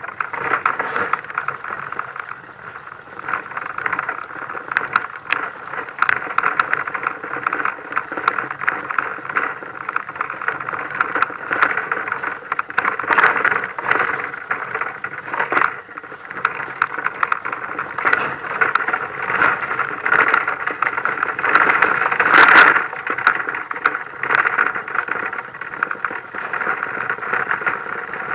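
Off-road vehicle driving a rough, rocky dirt track, heard through a mounted camera: a steady muffled drive noise with irregular rattling and knocks from the bumps, and one louder jolt some twenty seconds in.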